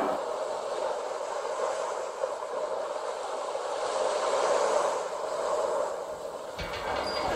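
A steady rushing noise that swells and fades slowly. A low rumble comes in near the end.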